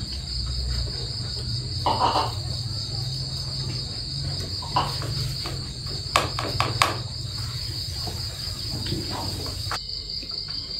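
Steady, high-pitched chorus of insects trilling without a break, over a low steady rumble. A few sharp clicks come just past the middle.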